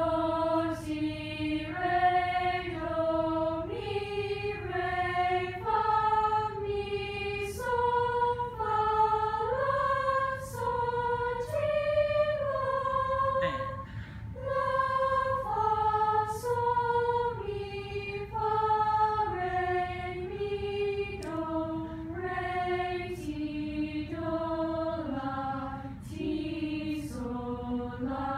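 Choir singing a minor scale in thirds without accompaniment, moving note by note in short, even steps up and down.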